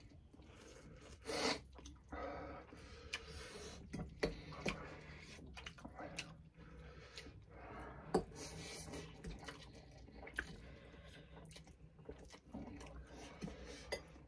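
Two people slurping and chewing instant ramen noodles, with forks clicking against ceramic bowls now and then. The loudest slurp comes about a second and a half in.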